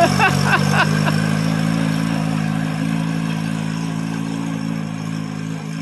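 Satoh S650G tractor's gasoline engine running steadily as the tractor drives off, slowly fading. A few short high chirps sound in the first second.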